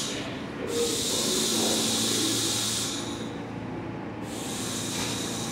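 New York City subway trains standing at the station with a loud, steady air hiss that cuts off sharply twice, under a low hum.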